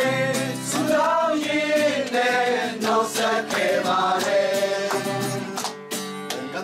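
A small group of men and women singing a Christmas carol together.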